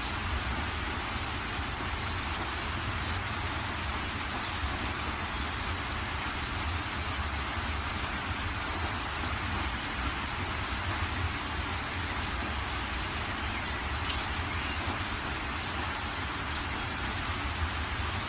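Steady rush of floodwater pouring through a dam's open spillway gates and churning in the basin below, with a low rumble underneath.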